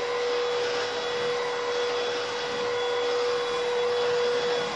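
Hoover Rhapsody cordless stick vacuum running at maximum power in turbo carpet mode with its electric brush on carpet, picking up spilled flour: a steady motor whine over an even rush of suction.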